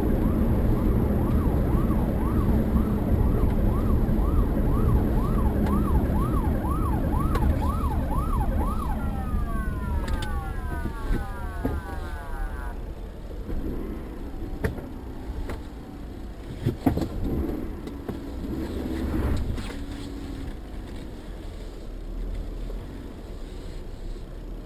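Emergency vehicle siren in a fast yelp, about two rising-and-falling whoops a second, switching to rapid falling sweeps before cutting off about 13 seconds in. After it, road and engine noise with a few sharp knocks.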